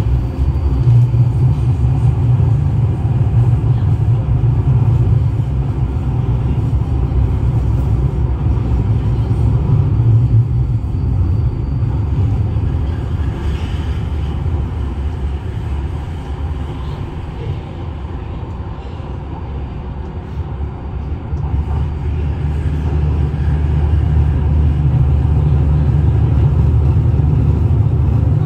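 Incheon Subway train running, heard from inside the carriage: a loud, steady deep rumble that eases for several seconds past the middle and builds again near the end.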